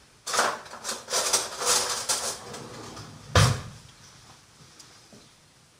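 Kitchen handling noises: about two seconds of irregular rustling and light clatter, then a single knock about three and a half seconds in.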